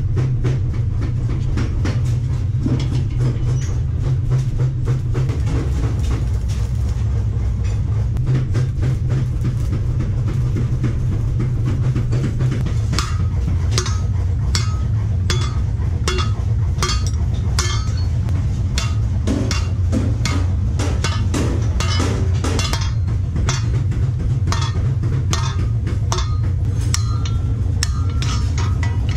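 Hand hammers striking steel on an anvil block, sharp metal-on-metal blows at about one and a half a second from about halfway through, fewer and softer before. A steady low rumble runs underneath.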